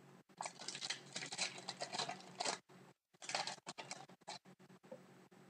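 Trading cards being handled and slid against one another, in two bursts of crisp rustling with light clicks, the second shorter.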